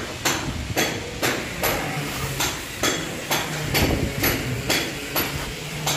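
Steady, rhythmic tapping on an Italian marble wall slab, about two to three knocks a second, each with a short ring, as the slab is beaten into its bed of tile adhesive.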